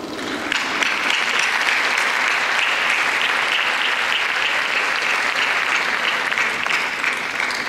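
Audience applauding, starting about half a second in, holding steady, and dying away near the end.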